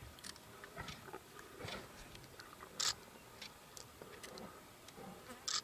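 Quiet open-air background with scattered soft clicks and two short hissing sounds, one about halfway through and one near the end.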